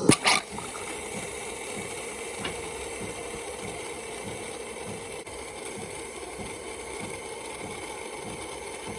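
DeLonghi PrimaDonna S Evo bean-to-cup coffee machine frothing and dispensing hot milk: a steady hissing run with a faint low pulse about twice a second underneath. A sharp knock sounds right at the start.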